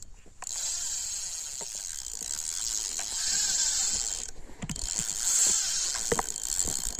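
Fishing line hissing off the spool of a carp spinning reel as a hooked carp runs hard, stripping line. The hiss comes in two long runs with a short break about four seconds in, with a few handling knocks near the end.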